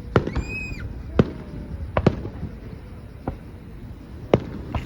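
Fireworks exploding: about six sharp bangs at irregular intervals, some louder than others. A short high whistle rises and falls about half a second in.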